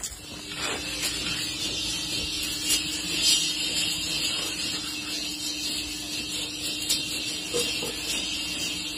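Makhana (fox nut) seeds rattling and scraping as they are worked in pans over open fires. Scattered sharp clicks and a hiss sit over a steady hum.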